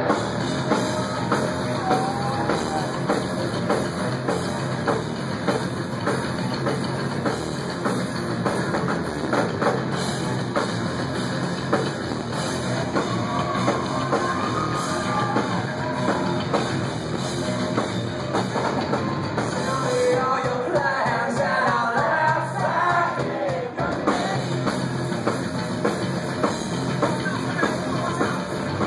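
Rock band playing live: drum kit, guitars and a singing voice, heard from within the crowd.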